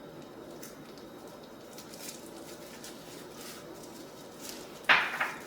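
Quiet handling sounds as powdered seasoning goes into a bowl of chopped vegetables and flour, with one sharp knock near the end.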